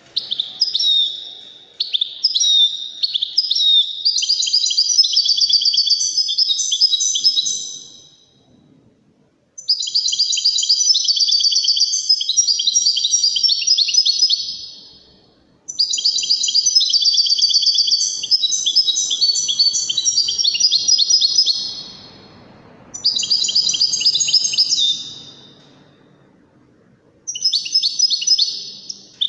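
European goldfinch singing: fast twittering song of rapid trills and chirps, in five bursts of a few seconds each with short pauses between them.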